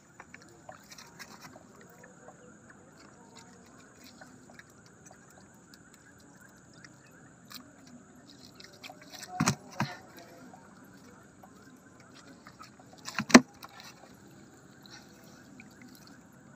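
Gill net being hauled into a small boat and fish picked from the mesh: soft rustling and small ticks, with two sharp knocks against the boat, a double knock about halfway through and a single, loudest one about four seconds later. A faint steady high hum runs underneath.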